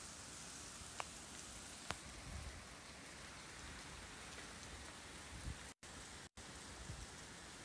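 Heavy typhoon rain pouring as a steady, even hiss, with two sharp clicks about one and two seconds in and a few low thumps. The sound cuts out twice briefly near the end.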